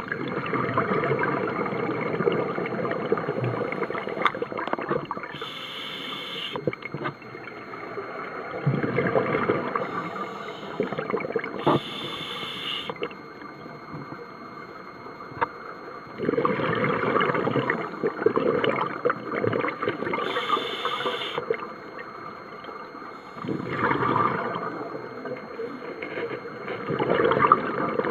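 Scuba diver breathing through a regulator underwater: long stretches of rumbling, gurgling exhaled bubbles, broken three times by a short, high hiss of inhalation.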